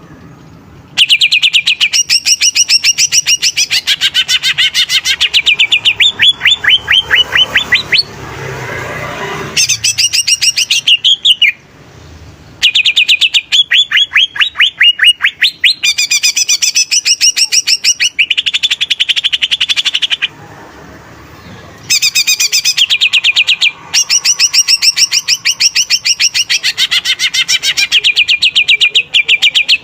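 Cucak ijo (green leafbird) singing loudly and continuously: long phrases of fast, high repeated notes and quick sliding sweeps, broken by a few short pauses.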